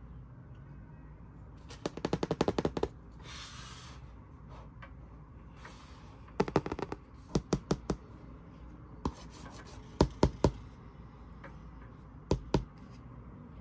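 A stiff cardboard board book being handled and opened: runs of sharp clicks and taps, a quick rattle of about ten near two seconds in, a short rustling slide just after, then several smaller groups of clicks.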